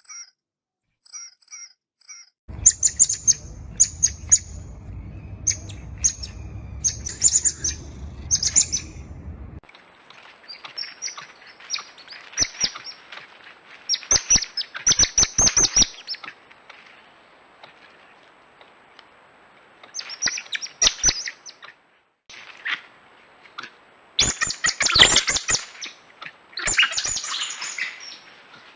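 Coatis chirping: quick series of short, high-pitched chirps and squeaks, coming in several bursts with short pauses between, and a low steady hum under the first several seconds.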